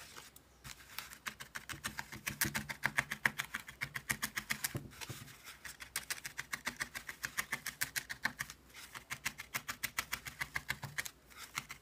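Felting needle stabbing repeatedly through wool into a foam felting pad to fix the wool wrapped on a pipe cleaner. It makes a fast, even run of small clicks, about five a second, with a couple of brief pauses.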